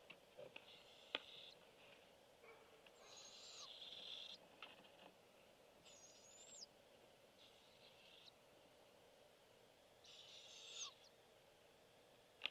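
Barred owlets giving repeated raspy, hissing begging calls, each up to about a second and a half long, some ending in a short upward sweep. There is a single sharp click about a second in.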